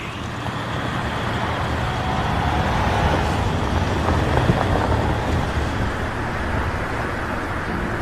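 A minibus driving past on the road, its engine and tyre noise swelling to a peak about halfway through, then easing off.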